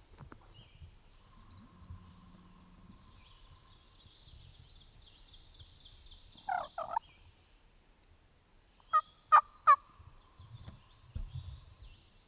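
Turkeys calling: a short rattling burst about six and a half seconds in, then three loud, evenly spaced yelp-like notes about nine seconds in. Small songbirds sing steadily throughout.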